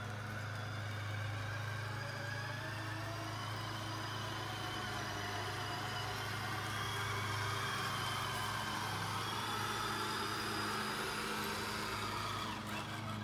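Radio-control model truck driving, its drive motor and gearbox whining higher and lower as the speed changes, over a steady low hum.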